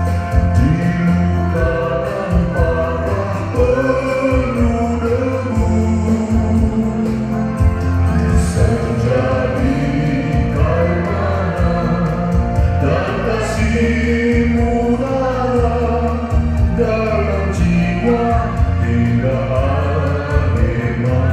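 Line-dance music: a song with singing over a steady beat.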